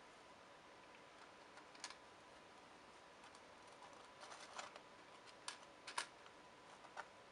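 Near silence with a faint steady tone, broken by a few light clicks and taps of small hand work, the sharpest about six seconds in, as wires are soldered onto the copper pads of an RGB LED strip.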